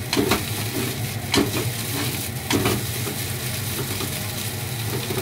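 Rice frying and sizzling in a nonstick frying pan while a wooden spatula stirs and scrapes it, with a few sharper scrapes in the first three seconds. A steady low hum runs underneath.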